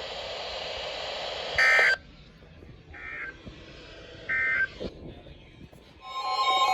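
EAS/SAME digital data tones from a weather-alert broadcast: three short warbling bursts about 1.3 s apart, the first the loudest, after a stretch of steady radio hiss. These are the end-of-message code that closes the severe thunderstorm warning. About six seconds in, a louder steady sound with several held pitches begins.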